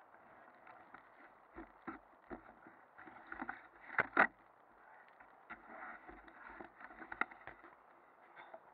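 Knocks, bumps and rubbing against the camera's microphone, with two louder thumps about four seconds in, over a low hiss. This is handling and mounting noise from an action camera as it is moved about.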